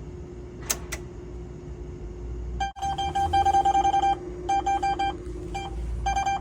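Two sharp clicks, then an ATM begins beeping fast: runs of short, identical electronic beeps several per second, broken by brief pauses, over a steady electrical hum.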